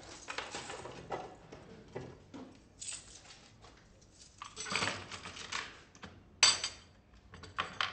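Small metal pieces and tools clicking, clinking and knocking as they are handled on a goldsmith's workbench, with a louder clatter about five seconds in and a sharp knock soon after.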